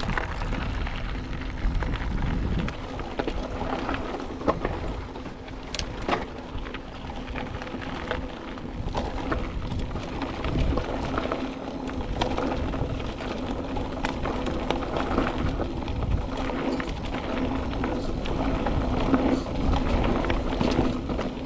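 Mountain bike riding: knobby tyres rolling with a steady hum, scattered clicks and rattles, and wind rumbling on the microphone.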